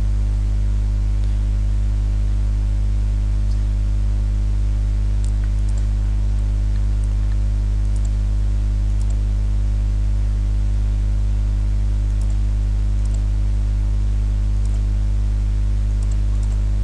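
Steady electrical mains hum picked up by the recording setup: a loud, unchanging low buzz with a ladder of overtones above it. A few faint clicks, spaced irregularly, from the computer mouse as sketch lines are placed.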